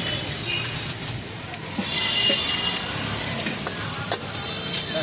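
Rice-flour batter sizzling in small hot iron pans over gas burners as it is ladled in, with a metal ladle scraping. A few short metal clinks of pan lids come about four seconds in.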